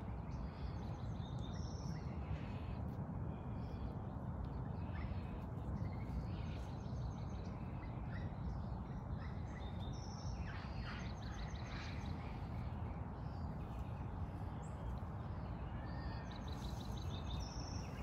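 Outdoor background rumble, with faint bird chirps in short, quick trills heard about three times.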